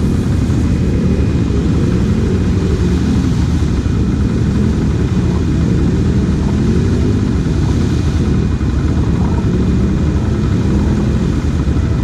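Kawasaki KFX 700 quad's V-twin engine running steadily at idle, a low drone.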